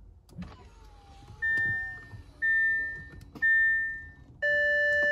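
Audi A6 dashboard warning chimes with the ignition switched on: three clear chimes about a second apart, each fading away, then a steady beep lasting about a second near the end.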